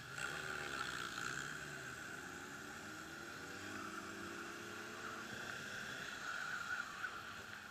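Sport motorcycle engine pulling away from a stop and accelerating. Its pitch rises twice as it goes up through the gears.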